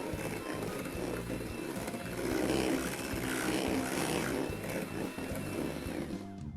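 Electric mixer running steadily, its beaters whipping a meringue of egg whites and sugar as egg yolks are added. Near the end the higher part of the sound drops away.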